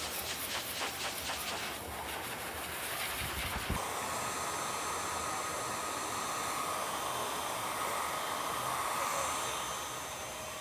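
Dog-grooming blow dryer running steadily, a constant airy hiss with a held whine, starting about four seconds in after a stretch of busier, scratchier noise.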